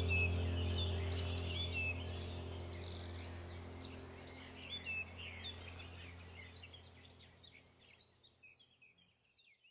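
Birdsong, many short chirps, over a steady low hum. Both fade out together to silence over about nine seconds.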